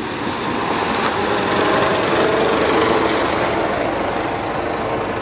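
Toyota Hilux pickup truck driving through a shallow stream ford, its engine running and its tyres splashing through the water, growing louder and then easing off slightly as it moves away.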